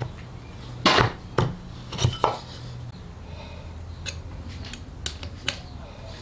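Metal parts of an old electric motor knocking and clinking as its end cover and housing are handled and fitted together: four sharp knocks in the first two and a half seconds, then lighter clicks.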